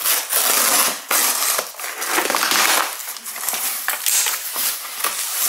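A cardboard shipping box and its packing being torn open and rustled by hand. The noisy rustling goes on with short breaks.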